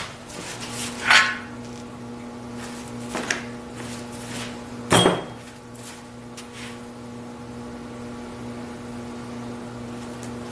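Metal clunks and knocks as a Ford 429 V8 short block is turned over on its engine stand. There are three sharp knocks, the loudest about five seconds in, over a steady low hum.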